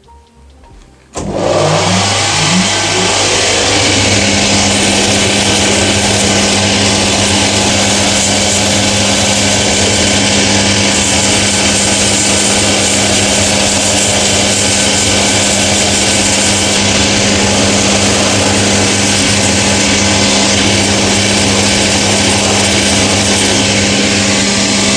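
Shoe finishing machine switched on about a second in, its motor spinning up with a rising hum and then running steadily and loud, while the edge of a rubber Vibram sole is ground against its sanding belt.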